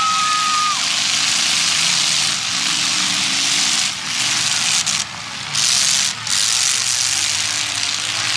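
Demolition derby cars' engines running, loud and steady, with dense noise across the upper range that dips briefly a few times. A short high steady tone stops just under a second in.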